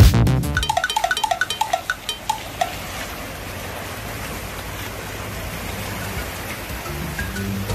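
The last notes of the electronic intro music echo and fade over the first two or three seconds, then a steady hiss of small waves breaking and washing over the shallows. Music comes back in near the end.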